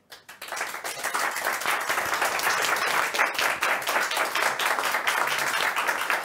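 Audience applauding: many hands clapping together, starting a fraction of a second in after a brief hush and keeping up steadily.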